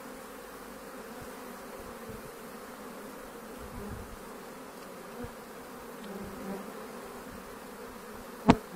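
Many honeybees buzzing steadily as they fly in and out of the hive entrances, hard at work on a heavy white acacia (black locust) nectar flow. A single sharp knock near the end.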